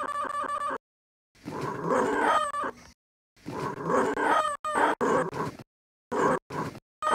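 A puppy's recorded vocal noises played back as samples from a drum-pad app: two longer clips with sliding pitch, then short chopped snippets that start and stop abruptly as pads are retapped. It opens with the tail of a repeating electronic ringing sample.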